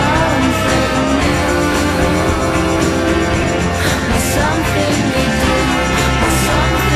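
Rock-style background music playing steadily.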